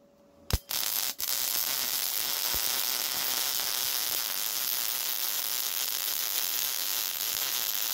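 Yeswelder Mig-205DS MIG welder running a vertical bead on quarter-inch steel at 140 amps and 19.1 volts with 75/25 argon-CO2 shielding gas. The arc strikes with a sharp crack about half a second in, catches after a brief stutter, then holds a steady, even sizzle: a stable arc that sounded good.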